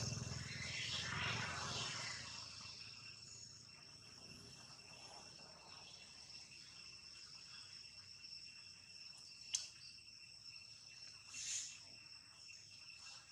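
Steady high-pitched drone of insects, two even tones held throughout. A louder, fuller sound fades away over the first two seconds; a single sharp click comes about nine and a half seconds in and a short hiss about two seconds later.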